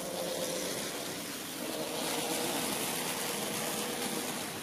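HO-scale model train coming out of a tunnel and running past close by: wheels rolling on the track with a steady hum, getting louder about two seconds in as the cars pass.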